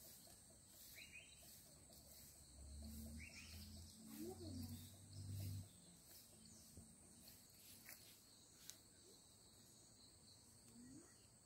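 Faint, steady chirping of crickets or other insects, a high drone pulsing about twice a second. A bird gives short falling calls a few times in the first half, and a low rumble comes about three to five seconds in.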